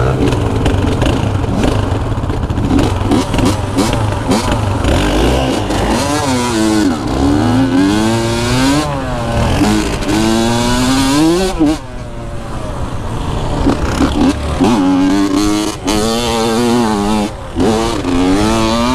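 Dirt bike engine revving, its pitch repeatedly climbing and dropping back.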